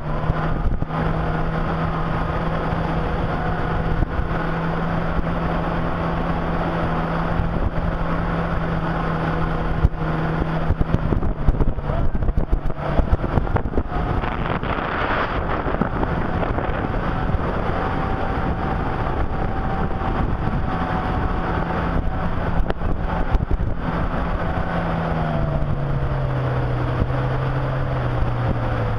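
Jet ski engine running steadily at cruising speed. Near the end its pitch drops as the throttle eases off.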